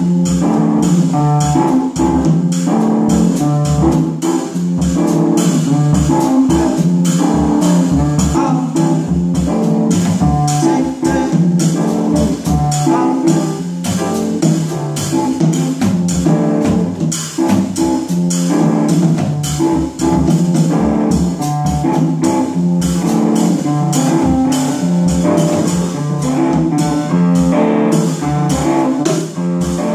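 Small jazz group playing live: a Gretsch drum kit keeping time on cymbals and drums, with piano and guitar.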